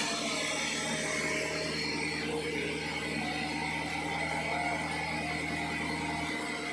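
Sawmill saw running steadily, a constant mechanical noise with a steady hum.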